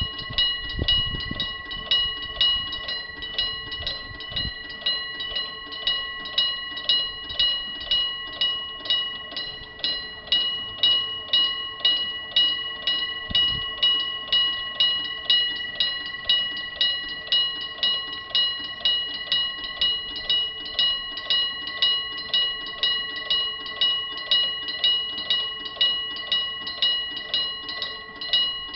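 Level-crossing electric warning bell ringing continuously, its clangs pulsing about twice a second, with some low rumbling in the first few seconds.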